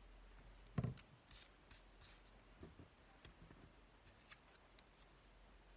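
Near silence with faint handling of paper craft supplies on a table: one soft knock a little under a second in, then a few light taps and rustles.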